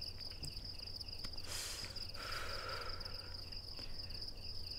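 Crickets trilling steadily over a low background hum, with a faint rushing sound about a second and a half in.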